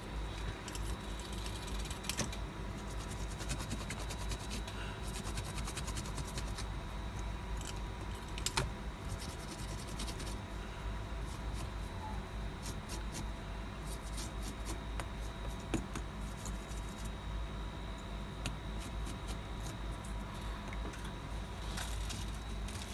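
Small clicks, taps and rubbing from an iPhone 7 logic board and tools being handled on a workbench, a few taps louder than the rest. Under them a steady low electrical hum with a faint high whine.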